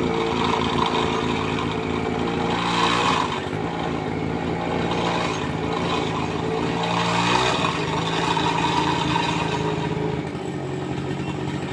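Motor of a homemade RC truck running continuously with an engine-like drone. Its pitch glides and shifts twice, as if speeding up and slowing down.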